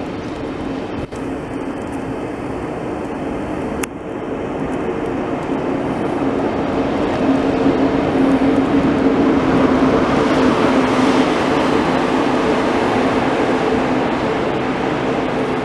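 Deutsche Bahn ICE high-speed train rolling past close by, with a steady low hum and wheel-and-rail noise that grows louder about halfway through as the power car passes underneath, then eases off slightly. A sharp click about four seconds in.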